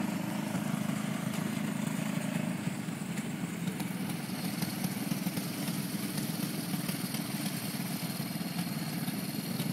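Small go-kart engines running steadily at low speed, a continuous hum, as two winged dirt-track karts roll slowly around the oval.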